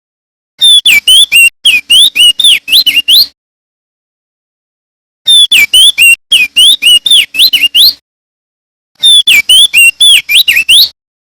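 Male opior jambul (crested white-eye) singing loud phrases of rapid, sweeping whistled notes: three runs of song, each two to three seconds long, broken by complete silences.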